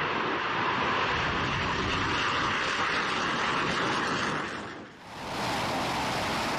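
Steady rushing jet noise from a twin-engine F/A-18 Hornet flying low. Near five seconds in it dips away briefly and returns as a steady, brighter hiss.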